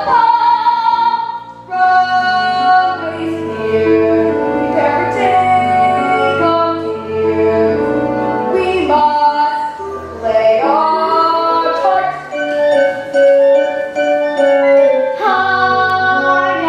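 Young performers singing a musical-theatre number over instrumental accompaniment, with the voices carrying a melody line above steady bass notes.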